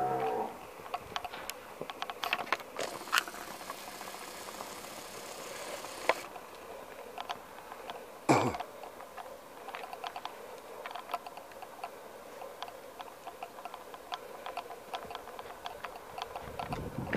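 Hoofbeats of a roan Quarter Horse gelding moving on a gravel road, a steady run of small irregular clicks, with one loud thump a little past the middle.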